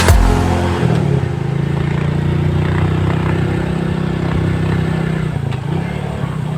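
A motor vehicle's engine running steadily, its pitch dipping and coming back up about a second in and again near the end.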